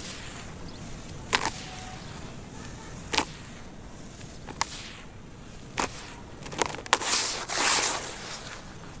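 Hands crumbling and dropping damp soil in a plastic tub: a short crunchy crackle every second or so, then a longer rush of falling dirt about seven seconds in.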